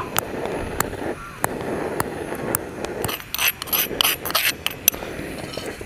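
Black peppercorns being crushed and ground in a stone mortar with a stone pestle: gritty scraping and rubbing of stone on stone, broken by sharp clicks, which come thicker between about three and five seconds in.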